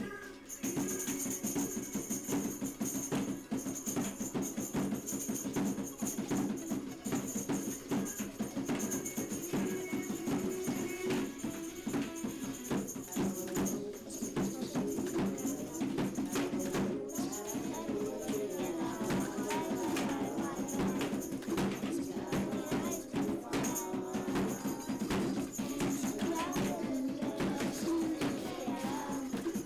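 Background music with rapid shaken percussion over a steady tune.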